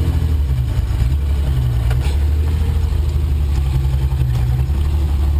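1983 Ford Ranger's 2.8-litre V6 running at low revs, a steady low drone, as the truck crawls along a tight wooded trail. A single brief knock about two seconds in.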